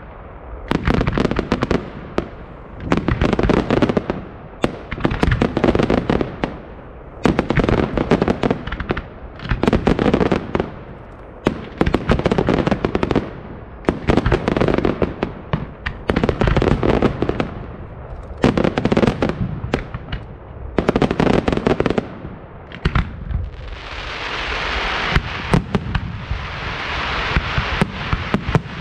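Fireworks display: rapid volleys of sharp bangs, one cluster about every two seconds. From about 24 seconds in, a steady hissing crackle fills the gaps.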